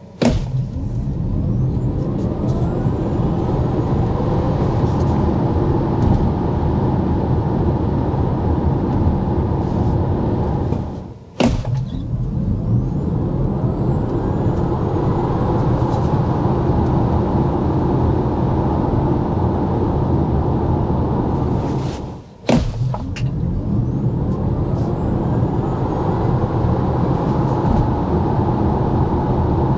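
Tesla Model Y Performance accelerating hard, three runs one after another. Each run starts abruptly with a faint electric-motor whine rising in pitch over the first couple of seconds, over a steady din of tyre and wind noise.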